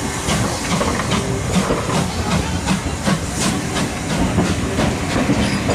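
Steam-hauled train of passenger coaches pulling slowly past, with regular sharp beats about two to three a second over a hiss of steam.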